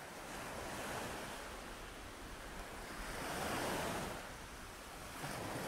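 Ocean surf, a steady hiss of waves washing on a shore that swells to its loudest a little past the middle.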